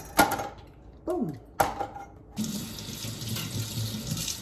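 Kitchen tap running into a sink, turned on about two seconds in and running steadily. Before it, two sharp knocks.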